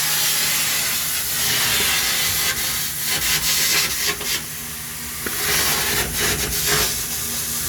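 Steady loud hiss with a low machine hum underneath and a few sharp knocks; the hiss grows brighter for about a second, from roughly four seconds in.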